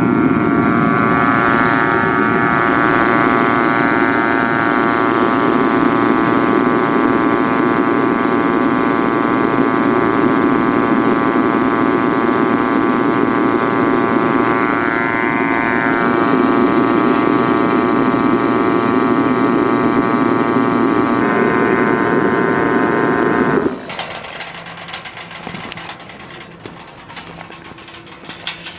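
Reddy Heater R50A 50,000 BTU kerosene torpedo heater running, a steady roar of fan and burner with a whine of many even tones, burning without shutting off now that the photocell flame sensor has been replaced. The sound cuts off abruptly near the end, leaving a much quieter stretch with scattered clicks.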